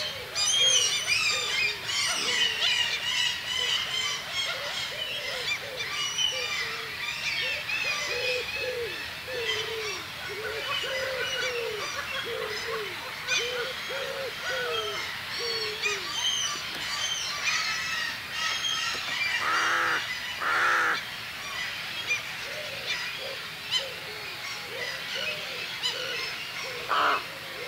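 A chorus of birds calling and singing together, with many high chirps and trills throughout. Through the middle runs a series of short, low, hooting calls. Three short noisy bursts come near the end.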